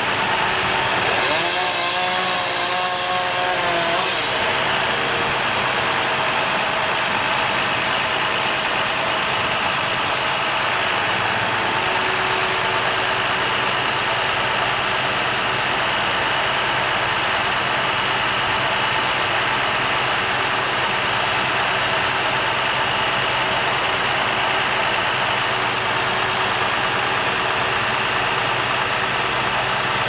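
Bucket truck's engine running steadily, a constant hum that keeps the aerial lift's hydraulics powered. About a second in, a brief wavering higher tone joins it for roughly three seconds.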